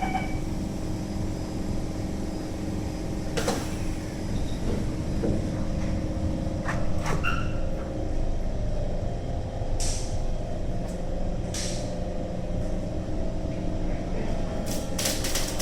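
Inside a Kawasaki C151 MRT train as the doors shut and it moves off: a steady low rumble with several short, sharp hisses of air, and a steady hum coming in partway through as the train gets under way.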